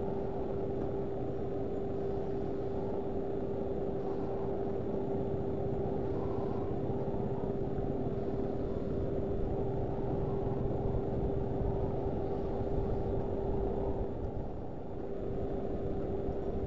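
Steady low rushing of river water running over rapids, with a steady hum through it; the rushing dips briefly near the end.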